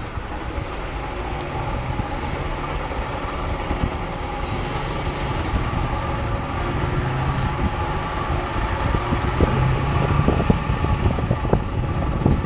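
Car driving slowly, heard from inside: a steady low rumble of engine and road noise. A few short knocks come in the last few seconds.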